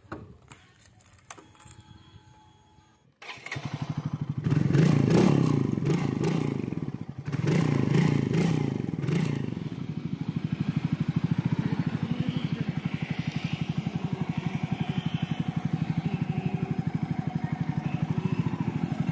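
Royal Enfield Classic 350's single-cylinder engine catching about three seconds in, revved twice, then running steadily with an even, rapid firing beat.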